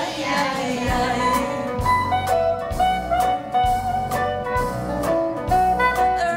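Recorded children's song playing, with held melody notes over a steady beat.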